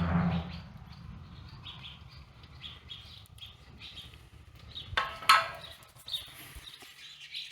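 A small bird chirps over and over, high and faint, while two short scraping knocks come about five seconds in as a pipe is being cleaned by hand.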